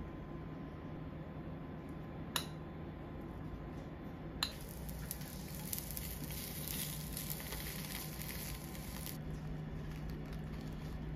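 Slices of bread frying in a nonstick pan, sizzling with a steady hiss from about four seconds in until about nine seconds. Two sharp clicks come before the sizzle starts.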